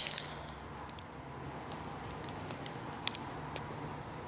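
Quiet handling of a necklace in a clear plastic bag: a few faint ticks and light rustles over a steady low background hiss.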